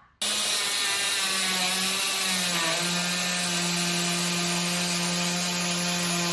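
Parkside 12 V cordless trim router motor switching on, then running at speed with a steady high whine. Its pitch dips briefly about two and a half seconds in, then holds steady.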